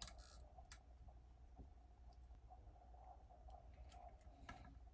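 Near silence: a few faint clicks and taps from small wiring parts being handled on a pickguard, over a faint steady hum.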